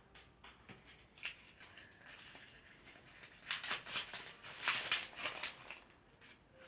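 Slime with paper mixed in, being kneaded and squished by hand: a run of small wet clicks and crackles, busiest and loudest from about halfway through.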